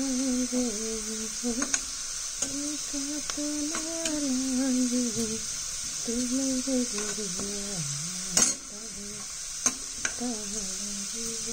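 Sliced onions with fenugreek and cumin seeds sizzling in hot oil in a steel kadhai, stirred with a metal spoon that clicks and scrapes against the pan several times, most sharply about eight seconds in. A voice hums a wandering tune over the frying.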